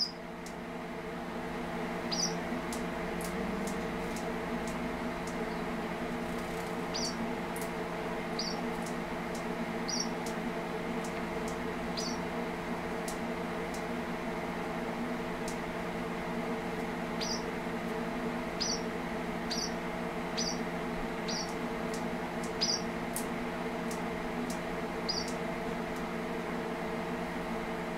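Male red avadavat (strawberry finch) giving short, high chirps, about a dozen single notes spaced irregularly a second or several apart, over a steady low hum.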